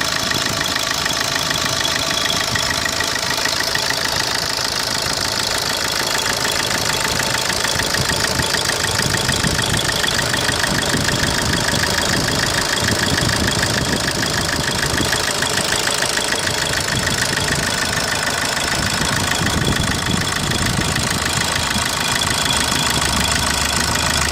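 2010 Opel Corsa D 1.3 CDTI four-cylinder turbodiesel idling steadily with a fast, even ticking through it. This is the abnormal engine noise being demonstrated.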